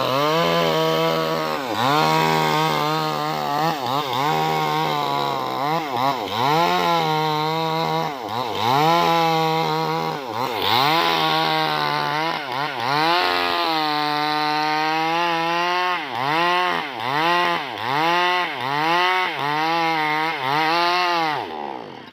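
New West 588 two-stroke chainsaw running at high revs, its engine pitch dipping and climbing back over and over as the throttle is worked and the chain bites into the wood, faster in the last few seconds. It drops away at the very end.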